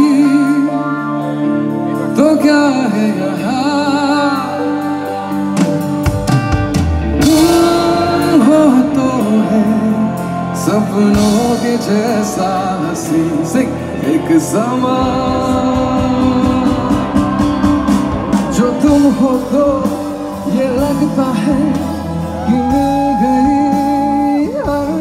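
Amplified live band performance: a male vocalist sings a wavering melody into a microphone over guitars, drums and keyboard. The bass and drums fill in strongly about six seconds in.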